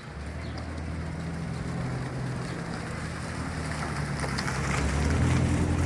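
A motor vehicle's engine running close by: a low, steady hum that starts at the outset and grows louder, peaking near the end, under a steady hiss.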